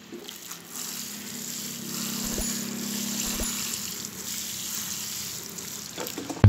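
Water running and splashing onto the potting soil of a potted tree, an even hiss with a steady low hum underneath, stopping just before the end.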